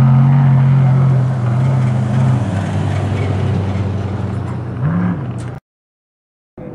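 Off-road race truck's engine running hard at a steady pitch, growing fainter as the truck speeds away; a brief rise in pitch about five seconds in, then the sound cuts off suddenly for about a second near the end.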